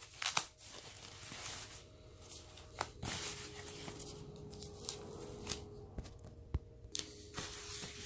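Rustling of unboxing packaging: a soft protective sleeve and wrapping being pulled off a speaker, with scattered light clicks and knocks as the pieces are handled.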